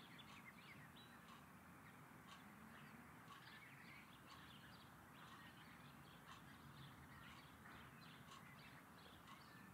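Near silence: quiet room tone with faint, scattered bird chirps.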